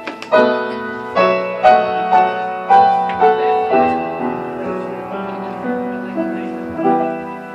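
Piano playing a slow, gentle introduction to a ballad: struck chords and single notes about every half second that ring and fade, thinning out and getting quieter near the end.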